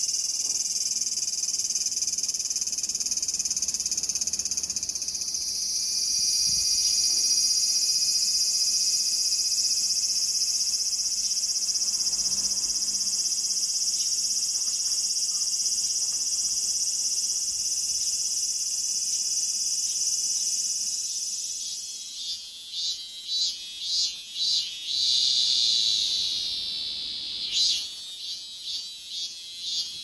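Large brown cicada (aburazemi) singing: a loud, continuous high-pitched sizzling buzz. About three-quarters of the way through the song turns to an even pulsing of about two beats a second, breaks off briefly, then pulses again.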